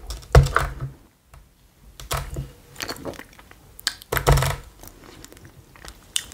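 Close-up eating sounds: a person chewing, with mouth noises and scattered sharp clicks. Two dull knocks come about half a second in and again after about four seconds.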